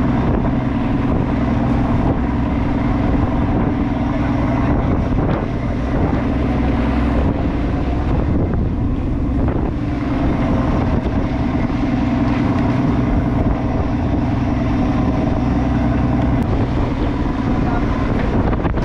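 Crab boat's engine running steadily, with wind buffeting the microphone.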